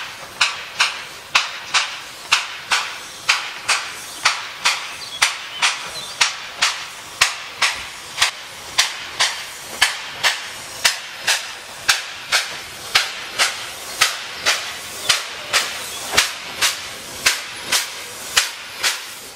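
Ex-JZ class 25 0-6-0 narrow-gauge steam locomotive working slowly, its exhaust chuffing in sharp, even beats about two a second.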